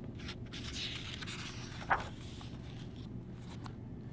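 A hardcover picture book's paper page being turned by hand: a soft rustling swish with one sharp papery snap just before the middle, then a few light handling ticks.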